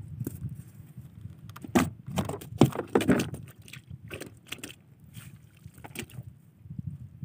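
A run of irregular splashes and knocks, busiest from about two to three and a half seconds in, with a few scattered ones after, over a low steady rumble.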